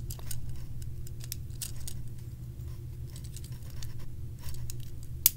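Plastic parts of a Transformers Deluxe Class Barricade figure clicking and scraping as it is handled and transformed, with one sharper click near the end, over a steady low hum.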